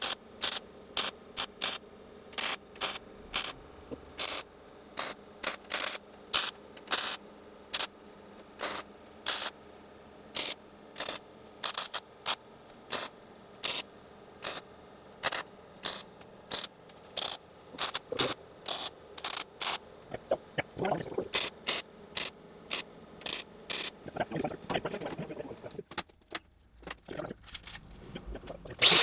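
Sheet-metal work on a jeep body panel: a long series of short, sharp metal sounds, about two a second, stopping for a moment near the end.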